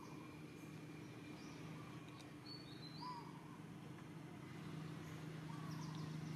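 Faint outdoor ambience: a few short bird chirps, two higher ones about halfway through, over a low steady hum that grows louder near the end.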